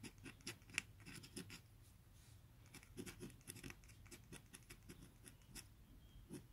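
Steel dip-pen nib scratching faintly across textured hanji-style paper in a run of short, uneven strokes as letters are written. The pen is writing poorly with a scratchy drag, which the writer puts down to the nib.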